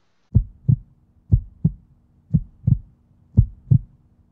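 Heartbeat sound effect: pairs of low thumps, about one pair a second, over a faint steady hum.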